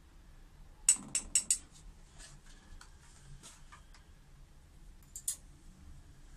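A metal teaspoon clinking against a stainless-steel mixing bowl: four quick, sharp clinks about a second in, a few lighter clicks after, and two more a little past the five-second mark.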